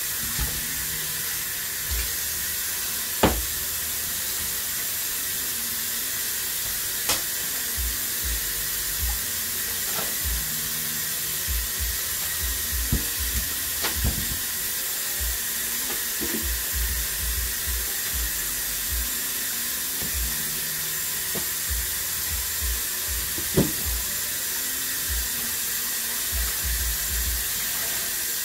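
Kitchen tap running steadily into a stainless steel sink as raw chicken wings are rinsed under it, with scattered knocks and clatters of the foam tray and the wings against the sink. The sharpest knocks come about three seconds in and again later on.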